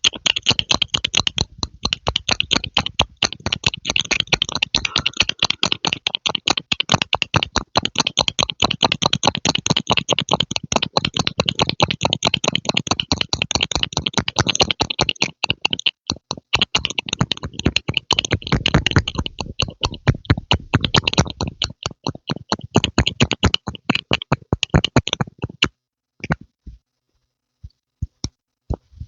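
Close-miked ASMR pumping sounds: a fast, continuous run of pops and clicks, several a second. They stop about four seconds before the end, and a few single clicks follow.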